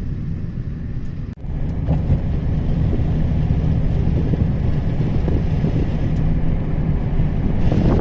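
Steady low rumble of road and engine noise inside a moving taxi.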